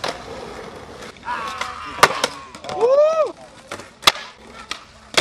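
Skateboard tricks on pavement: sharp cracks of the board's tail popping and the deck landing, about two seconds in and again about four seconds in. Between them a person's voice calls out with a rising and falling cry.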